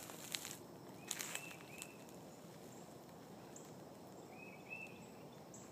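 Quiet outdoor background hiss with faint, short, high chirping calls from a small wild animal, in two brief runs of two or three notes each, about a second in and again near the end. A couple of sharp clicks sound in the first second and a half.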